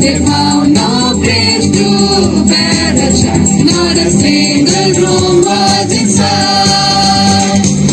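Group of carollers singing a Christmas carol together.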